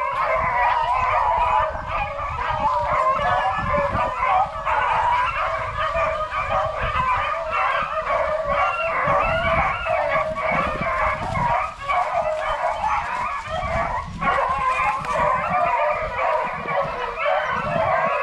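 A pack of rabbit-hunting beagles baying continuously, several dogs' voices overlapping: the pack giving chase on a rabbit's track.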